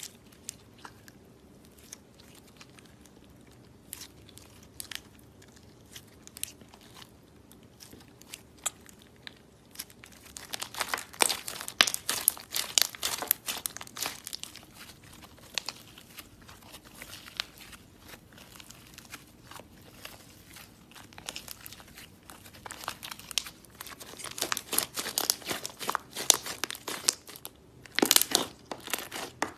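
Slime being squeezed and worked by hand, making sticky crackling and popping sounds: only scattered small clicks for the first third, then dense crackling about a third of the way in and again over the last few seconds.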